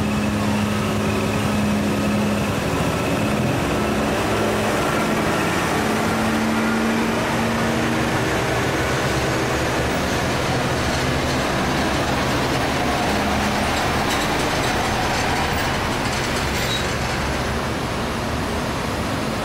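Heavy diesel trucks and a bus passing one after another, their engines working hard under load on an uphill mountain climb: a Mitsubishi truck first, then a Nissan Diesel V8 truck, with a coach bus coming up near the end. The engine note holds a steady pitch in the first half, then gives way to a denser, noisier engine and tyre sound.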